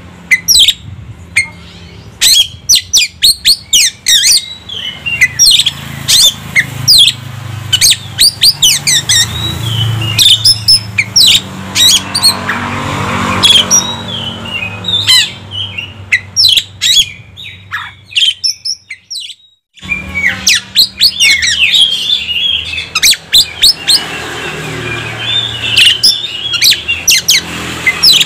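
Oriental magpie-robin (kacer) singing a loud, rapid, varied song of sharp chips, trills and whistles, with a short break a little past the middle.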